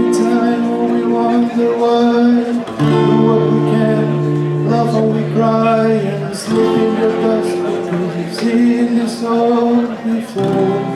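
Acoustic guitar strummed in the closing instrumental bars of a song, with a new chord every couple of seconds. The last chord is struck near the end and left to ring.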